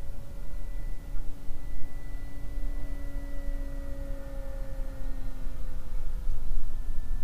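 Model airplane's motor whining steadily in flight, its pitch sinking slowly, over a steady low rumble.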